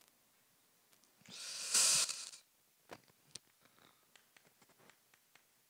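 A brief rush of noise about a second and a half in, then chalk clicking and tapping on a chalkboard as writing begins: two sharp clicks, followed by faint scattered ticks.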